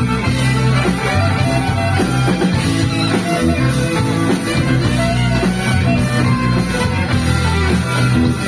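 Instrumental rock music: electric guitars and bass playing sustained chords, loud and steady, with no singing.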